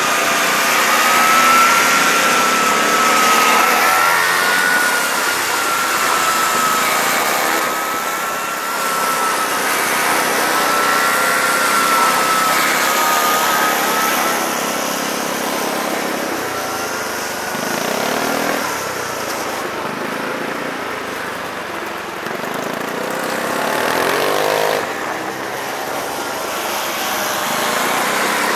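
Motorcycle engines running as they ride past, with a steady high whine through the first half. Engines rev up twice in the later part.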